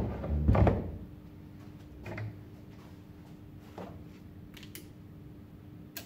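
Handling noises as a plastic traffic-cone horn is laid down on a workbench: a thump with rustling at the start, a smaller knock about two seconds in, then a few light clicks from the air hose fitting. A faint steady hum runs underneath.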